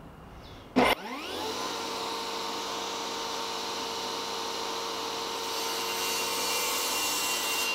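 Table saw switched on with a click about a second in, its motor quickly winding up to a steady whine. Its blade then cuts through a wooden broomstick during the last couple of seconds, adding a brighter cutting hiss.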